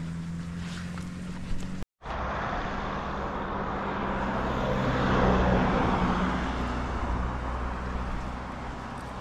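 Road traffic: a vehicle passes close by, its engine and tyre noise swelling to a peak about five seconds in and then fading. Before that a steady engine hum runs, broken off by a brief total dropout near two seconds in.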